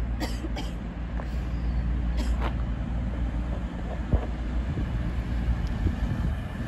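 CrossCountry Class 221 Super Voyager diesel-electric multiple unit pulling slowly into the platform, its underfloor diesel engines running with a steady low drone. A few short clicks come near the start.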